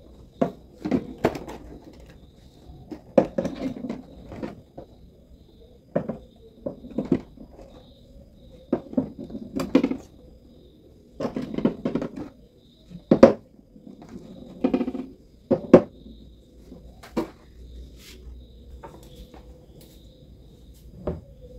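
Irregular knocks and clicks of eggs and hands against a plastic cooler box, some coming in quick clusters, over a faint steady hum.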